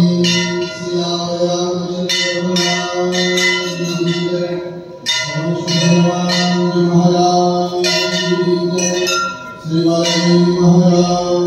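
Temple bells rung over and over with irregular strikes, above a steady held pitched tone that stops briefly twice, about five and nine and a half seconds in.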